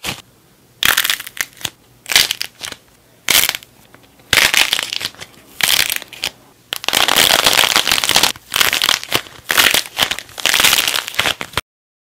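Hands crushing and breaking apart a dried clay figure, the clay cracking and crunching in about eight spells of crackling with short pauses between them. The sound cuts off abruptly near the end.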